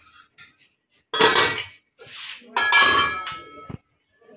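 Stainless steel dishes and utensils clattering: a sharp clang about a second in, then a longer rattle with metallic ringing near three seconds in.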